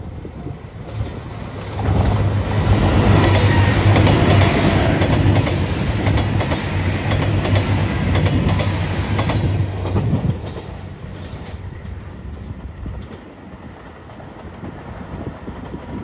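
JR Shikoku 2700 series diesel express train passing at speed, its diesel engines running under a steady low drone and its wheels clacking over the rail joints. It builds about two seconds in and drops away about ten seconds in.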